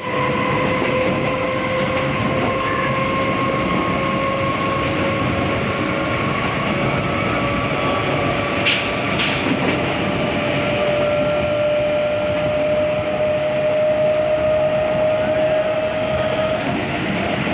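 Train running on rails: a steady rumble with a held whine that rises slowly in pitch and stops near the end, and two sharp clicks about halfway through.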